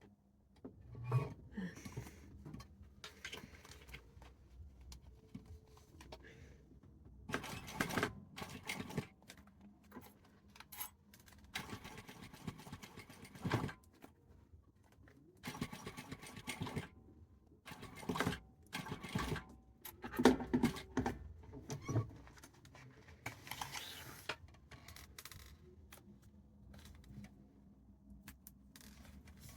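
Sewing machine stitching in several short runs of one to two seconds each, with quieter handling and small clinks in between.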